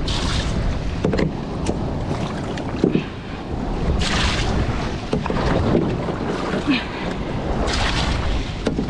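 Wind buffeting the microphone and water noise on a small aluminium boat at sea, with two short rushing hisses, about four seconds in and near the end.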